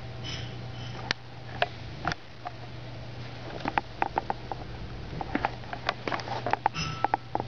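Wheeled runaway alarm clock driving over a wooden floor: a steady low hum under many sharp clicks and knocks from its wheels and plastic body, coming thick and fast from about halfway through as it tumbles. Short high electronic beeps sound twice near the start and again near the end.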